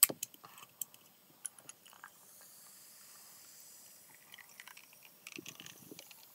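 An aluminium drink can snaps open with a sharp crack at the start. A carbonated energy drink is then poured into a glass, with faint fizzing and a few small clicks.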